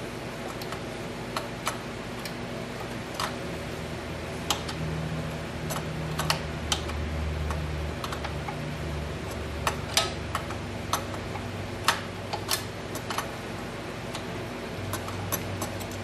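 Irregular sharp metallic clicks and taps from a wrench working loose the second carburetor mounting nut, over a steady low hum.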